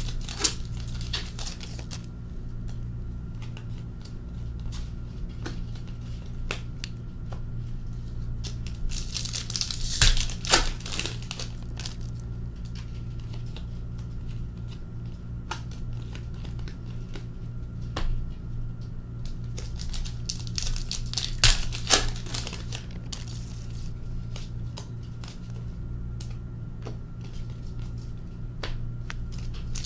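Hockey card pack wrappers crinkling and tearing open in several bursts, roughly ten seconds apart, with quieter shuffling and clicking of cards between; a steady low hum runs underneath.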